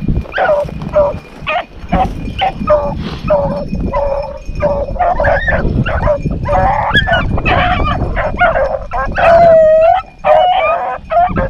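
A pack of rabbit hounds baying on a rabbit's trail: rapid, overlapping barks and yips, with one longer drawn-out howl near the end.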